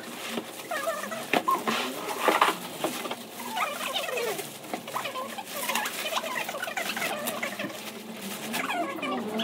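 A small animal making a run of short squeaky calls that glide up and down in pitch.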